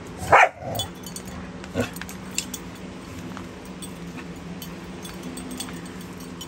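A dog gives one short, loud cry about half a second in, followed by scattered light clicks and clinks while the dogs play, over a steady low hum.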